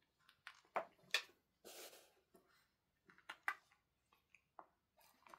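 A cat chewing dried matatabi (silvervine) fruit, giving short, sharp crunches and clicks at uneven intervals, with a brief rustle about two seconds in.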